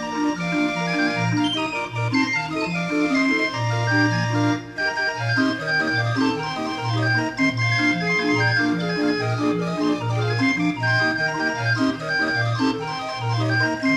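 Barrel organ (a Binche 'viole') playing a carnival air: a reedy, organ-like melody over a regularly bouncing bass line, with a brief dip about four and a half seconds in.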